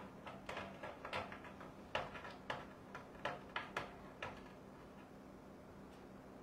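Faint irregular clicks and taps, about ten over four seconds and stopping a little after four seconds in, over a steady low hum.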